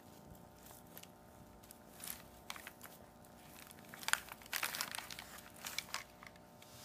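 Brown packing paper crinkling and crackling in irregular bursts under a kitten squirming and rolling on it, loudest about four to five seconds in.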